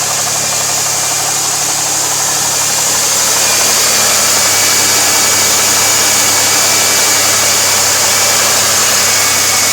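2002 Pontiac Firebird's 3.8-litre V6 idling under a steady high hiss, the sound of a vacuum leak. A faint high whistle joins about a third of the way in.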